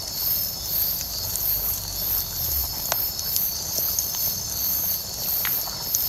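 Night insects chirping in a steady, very high pulsing rhythm, about three pulses every two seconds, over a continuous high trill. A few sharp pops of a wood bonfire crackle through it, one about halfway and one near the end.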